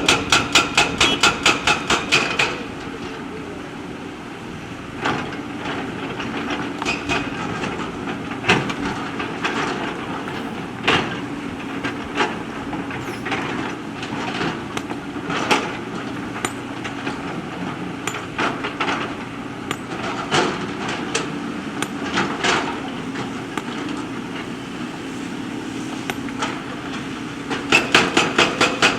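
JCB backhoe loader at work: its diesel engine runs steadily under scattered sharp metallic knocks and clanks. For the first couple of seconds, and again near the end, a rapid regular hammering comes in, about five strikes a second.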